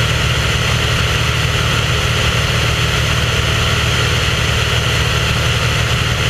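Aircraft engine and propeller running steadily at cruise, heard from on board as a constant loud drone with no change in pitch.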